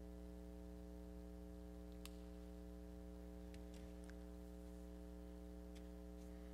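Low, steady electrical hum, with a few faint clicks between about two and six seconds in.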